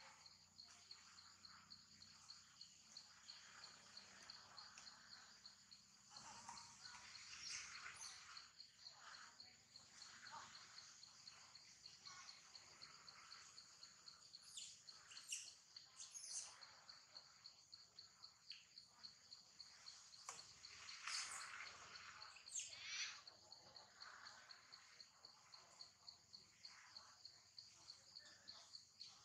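Faint, steady high-pitched insect trill pulsing rapidly, with a few short high chirps breaking in around the middle of the stretch.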